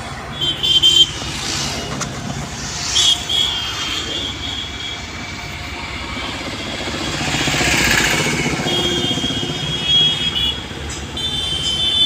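Mahindra diesel engine running steadily during a forced DPF regeneration, burning off soot built up after the urea ran out. Short high-pitched squealing tones come and go over it, and a broad whooshing swell rises and falls about two-thirds of the way through.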